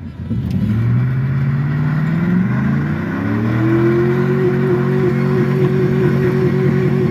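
Chevrolet pickup truck's engine, heard from inside the cab, revving up hard. The pitch climbs, drops back about two and a half seconds in as the transmission shifts up, then climbs again and holds high and steady.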